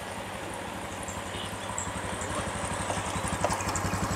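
A small engine idles with a steady low putter that grows louder through the second half.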